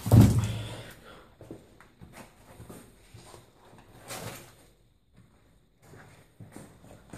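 A door bangs shut with a heavy, echoing thud, the echo dying away over about a second. Scattered small knocks and scuffs follow, one a little louder about four seconds in.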